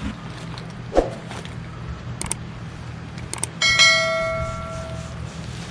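Metal grommet-setting tools being handled: a few light clicks, then a metal clank that rings out like a bell and fades over about a second and a half, over a low steady hum.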